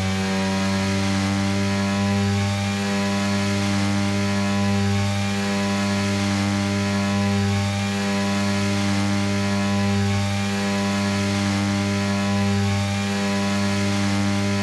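BMW S1000RR's inline-four engine running steadily at held revs, with an even buzzing drone that neither rises nor falls.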